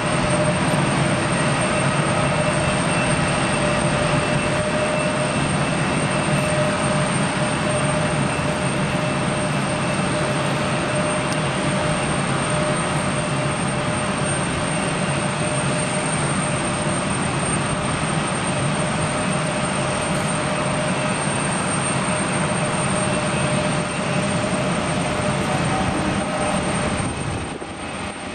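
Steady, unchanging roar of airport noise with a constant droning hum, heard from behind the terminal glass. It drops suddenly about a second before the end.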